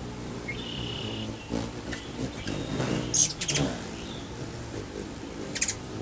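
Hummingbirds at a nectar feeder giving short, sharp, high chips, a cluster about halfway through and another near the end, with a brief high whistle near the start. A low steady hum runs underneath.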